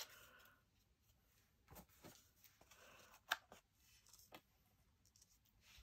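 Near silence with a few faint, short clicks and taps from handling cardstock vellum at a paper craft punch.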